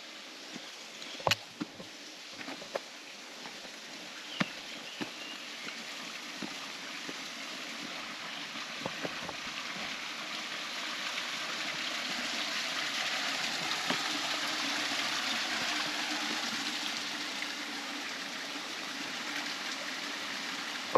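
A stream flowing over rocks, its steady rush growing louder toward the middle and easing slightly near the end. A few sharp clicks or knocks come through, loudest in the first few seconds.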